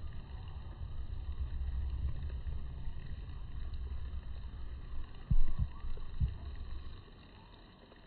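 Low rumble of wind and handling noise on a smartphone microphone, with three dull knocks a little after five seconds and around six seconds. It drops to a faint hiss near the end.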